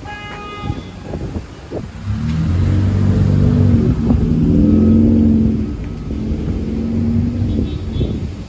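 A car drives past close by, its engine loud for about three and a half seconds as it passes, then quieter as it moves off. A brief high-pitched tone sounds right at the start.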